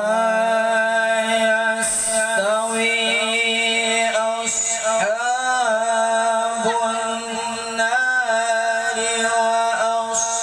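A young qari reciting the Quran in a melodic, chanted style. He holds one long, ornamented note with wavering turns, without a break for breath.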